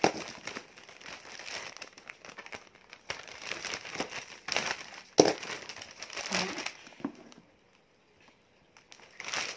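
Plastic packaging crinkling and crackling as a parcel is unwrapped by hand, with irregular sharp crackles. It stops for about a second and a half near the end, then the crinkling starts again.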